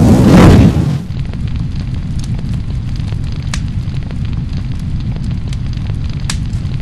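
Fire sound effect: a loud burst of flame in the first second, settling into a steady low rumble of burning with a few sharp crackles.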